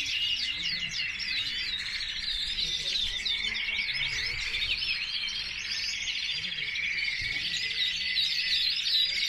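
Many caged canaries singing at once: a dense, unbroken chorus of overlapping chirps, warbles and rapid trills.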